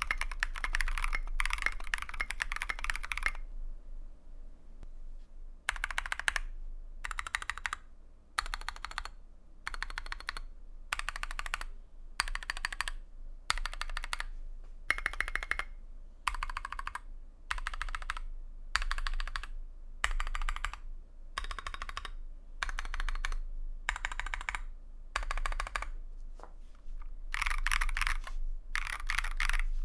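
Custom mechanical keyboard, a KBDFans TFV2 with a brass plate, lubed NK Blueberry tactile switches and SA-profile PBT keycaps, on a deskmat. It opens with a few seconds of fast typing. After a pause, single modifier keys are pressed one at a time about once a second. Near the end comes another quick flurry of presses.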